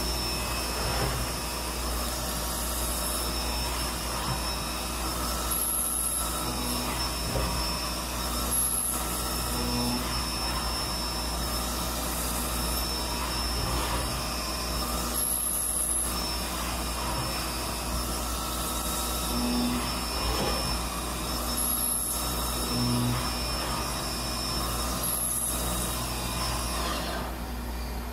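CNC vertical mill drilling holes with a 0.315-inch drill under flood coolant: a steady hiss of spraying coolant and cutting, with a short high whine recurring every few seconds.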